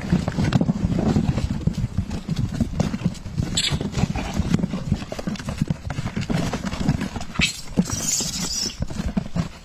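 Macaques scrabbling in a cardboard box of bananas: a dense, fast run of knocks, thumps and rustles as hands grab at the fruit and bump the cardboard, with a few sharper scrapes.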